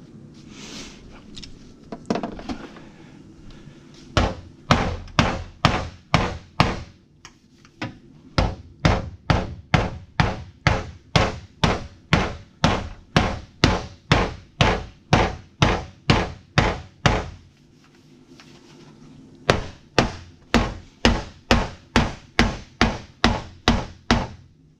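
Repeated hammer strikes on a car fender's sheet metal, about two a second, in three runs with short pauses between.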